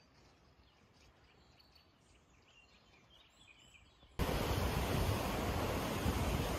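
Very quiet outdoor ambience with a few faint bird chirps, then, about four seconds in, a sudden switch to a steady rushing noise of wind on the microphone.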